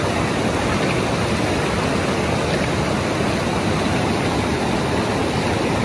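Steady rushing noise of fast-flowing river water.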